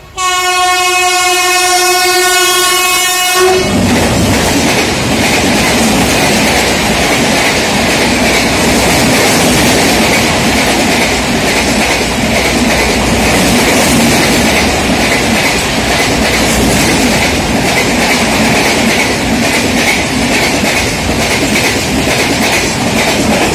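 Indian Railways express sounding its electric locomotive's horn in one long blast that stops about three and a half seconds in, followed by the train running past at speed: a loud, steady rush of coaches with a fast clatter of wheels over the rails.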